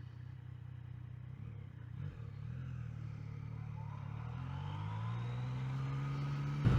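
2019 Yamaha XSR900's 847 cc inline-three engine under way, its pitch and loudness rising steadily from about two seconds in as the bike accelerates.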